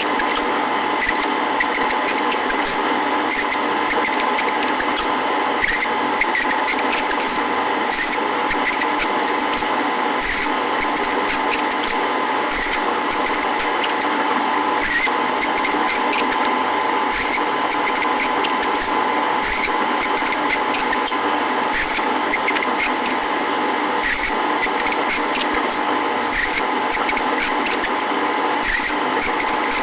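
Metal lathe running at low spindle speed while its cutter turns down the weld built up on a pulley, boring it to fit a taper: a steady machine hum with a faint high ticking.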